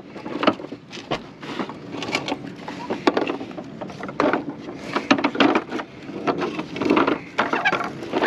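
Discarded toys being handled and sorted through: irregular clicks and knocks of hard objects against each other, over rustling.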